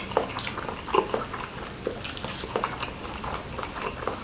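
Close-miked chewing of a mouthful of martabak telor, with irregular wet smacks and mouth clicks.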